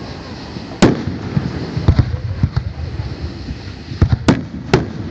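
Aerial fireworks shells bursting: a string of sharp, irregularly spaced bangs, the loudest about a second in, then two close together around two seconds and a quick run of three more near the end.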